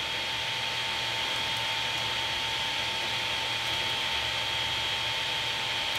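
Ender 3 Pro 3D printer's cooling fans running steadily, a constant hum with a faint high whine, while the hot end is held at printing temperature.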